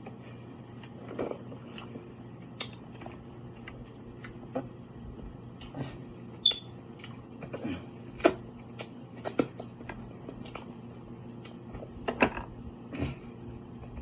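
A person eating seafood close to the microphone: wet chewing and smacking, with irregular sharp clicks and cracks. A low steady hum runs underneath.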